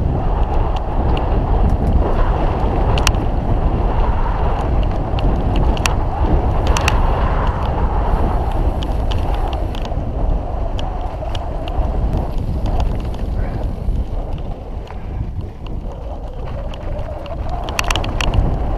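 Mountain bike rolling fast over a dirt and gravel trail, with wind rushing over the microphone and scattered clicks and rattles from the bike.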